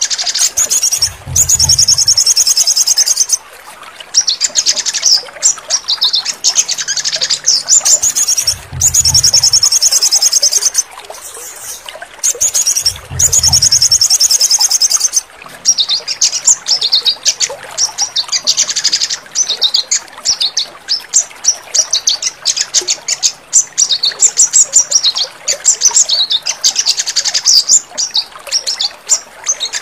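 Sogon (crimson sunbird) singing rapid, high-pitched trills in bouts of a few seconds. This is a therapy song used to coax caged birds that have stopped singing back into song. Three short low rumbles sound underneath.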